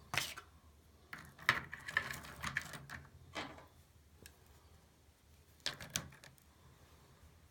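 Rough rock specimens clinking and scraping against one another as they are handled in a box, in scattered short bursts with a quiet stretch between.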